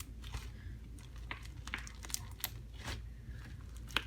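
Foam-bead slime (floam) being squeezed and poked by hand, giving irregular crunchy crackles and clicks.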